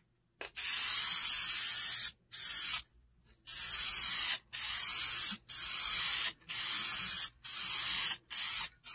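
Aerosol can of vinyl and fabric paint spraying a pleated vinyl car seat: a hiss in about eight short bursts of a second or less, each cut off by a brief pause. The paint is going on as a second coat.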